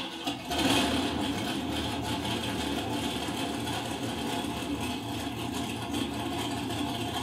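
Cold, alcohol-fuelled 565-cubic-inch naturally aspirated engine of a mud truck catching with a loud burst a little under a second in, then running steadily on a cold start. It is heard through a TV's speaker.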